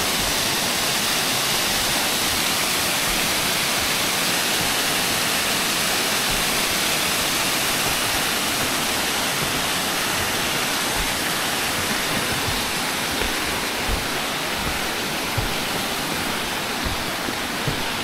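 Waterfall cascading over rocks into the river: a steady, even rush of falling water.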